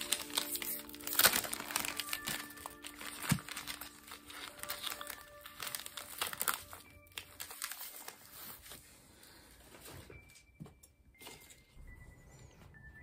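Clear plastic wrapper crinkling and rustling as gloved hands pull it off a plastic tray of mochi. It is busiest in the first half, with sharper crackles about one and three seconds in, and dies away after about seven seconds. Soft background music plays underneath.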